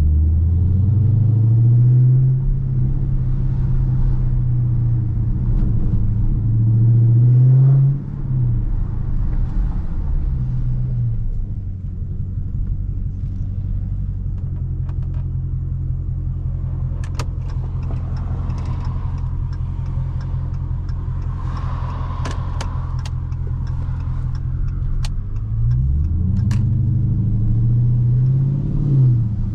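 2019 Dodge Charger Scat Pack's 6.4-litre HEMI V8 under way: the engine revs up at the start, rises again and drops back around eight seconds in, settles to a steady low drone for several seconds, then revs up once more near the end. A few sharp clicks sound during the steady stretch.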